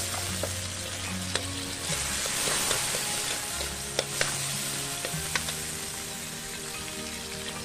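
Garlic, onion and tomatoes sizzling in hot oil in a metal wok, stirred with a metal spatula that clicks and scrapes against the pan several times.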